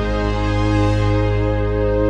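Background music: sustained keyboard chords.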